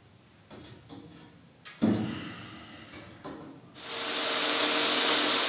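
A large glass ceiling pane knocks against its frame a few times as it is lifted back into place. About two-thirds of the way through, a loud, steady hiss with a faint hum sets in and holds.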